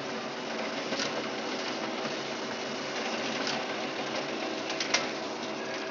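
Konica Minolta magicolor 3730DN colour laser printer running an A4 print job: a steady mechanical whir with several held hum tones, broken by a few light clicks and one sharper click about five seconds in.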